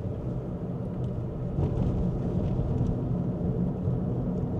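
Steady low rumble of a car's engine and tyres heard from inside the cabin while driving, getting a little louder about a second and a half in.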